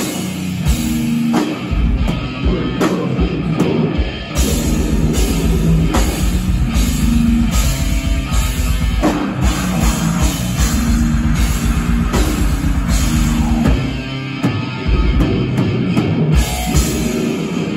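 Metal/hardcore band playing live and loud: distorted electric guitar and bass over a drum kit, with a fast run of low kick-drum strokes through most of it that eases off near the end.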